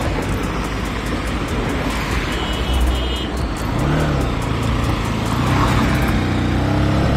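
Motorcycle running along a road while being ridden, with a steady mix of engine and road noise and a low engine note that rises and falls slightly.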